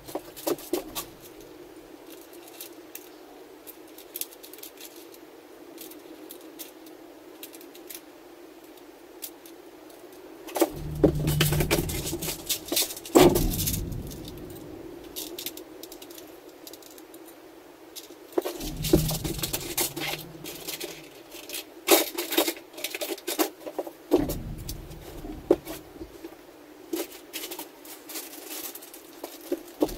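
Small metal parts and plastic parts drawers clinking and rattling as they are rummaged through and handled, with scattered clicks and a few clusters of heavier knocks and thumps over a faint steady hum.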